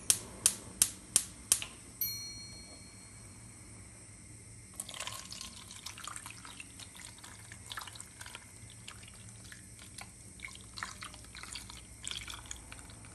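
A metal spoon clinks quickly against a stainless-steel saucepan, ending in one ringing clink. Then, from about five seconds in, tomato paste water is poured from the saucepan over stuffed zucchini in a pot, splashing and dripping irregularly.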